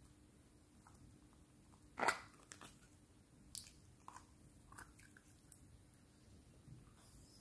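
Plastic screw lid of a butter slime jar twisted open. It comes loose with a sharp click about two seconds in, followed by several softer clicks and crackles as the open jar is handled.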